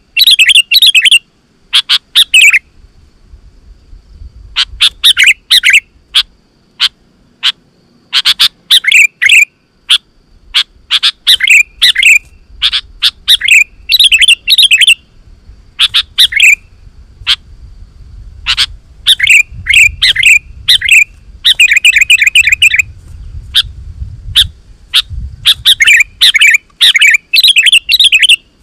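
Sooty-headed bulbul (kutilang) singing vigorously: loud, repeated short phrases of bright chirping notes broken by brief pauses, including a fast run of repeated notes about two-thirds of the way in.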